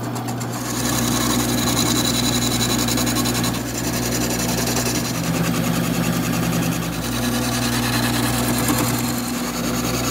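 Wood lathe running with a steady motor hum while a turning tool roughs down a spinning apple wood blank, the cutting a continuous rough scraping over the hum. The blank is still out of round and slightly bowed, so this is the early rough-turning stage.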